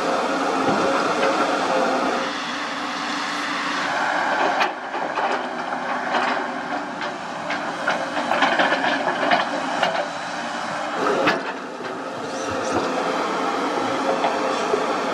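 JCB JS205 excavator's diesel engine running steadily under hydraulic load while the bucket digs through soil and rocks. Through the middle stretch there are many short knocks and clatters of stones and dirt against the steel bucket.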